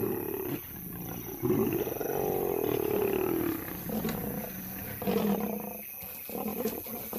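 Lions growling and snarling in a fight: lionesses driving back a male lion that is attacking their cubs. There are two long, drawn-out growls, one starting about a second and a half in and another about four seconds in, and shorter ones near the end.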